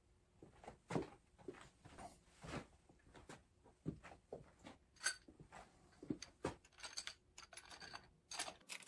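Faint scattered metal clicks and light knocks as a camshaft is laid into the journals of a Yamaha 1.8L four-stroke watercraft cylinder head and handled by hand.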